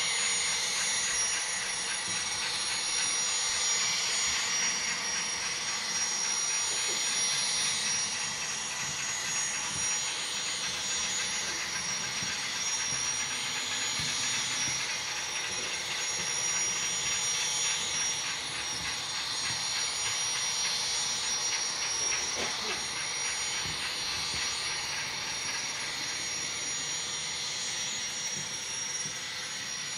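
Model train running on a layout: a steady whir of the locomotive and its cars rolling over the rails and through switches, with a steady high-pitched tone throughout.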